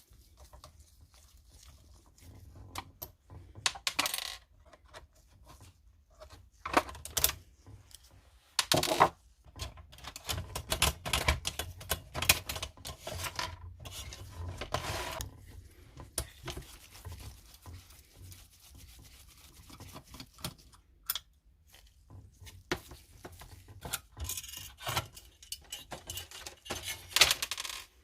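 Printer parts being handled and pried apart: irregular clicks, small knocks and clattering, with stretches of scraping and rubbing.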